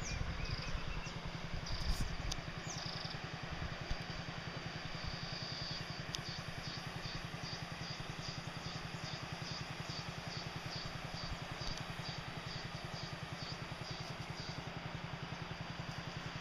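River water rushing steadily over a shallow weir and rocks, under a steady low throb with a quick, even pulse. From about a third of the way in, faint high notes repeat about twice a second.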